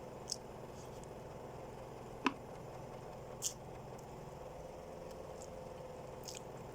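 Quiet chewing and mouth sounds of someone eating chicken biryani, with a few small clicks and one sharper click about two seconds in, over a steady low hum.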